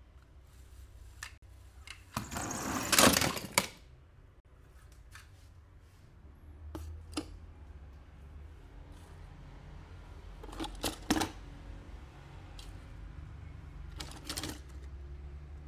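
Toy cars and small plastic pieces being handled: scattered light clicks and taps, with a louder scraping, rustling stretch lasting about a second and a half a couple of seconds in.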